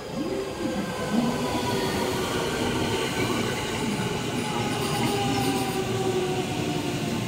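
JR West suburban electric train pulling into the station and slowing past the platform: steady electric-motor whine over wheel-and-rail rumble.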